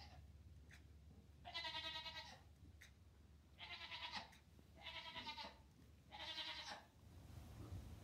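Two-day-old Nigerian Dwarf goat kid bleating four times, short high-pitched calls a little over a second apart.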